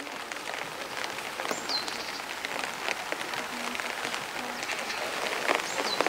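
Rain pattering on wet stone, a steady hiss full of small drop ticks that starts suddenly. A bird gives a short falling call about a second and a half in and again near the end.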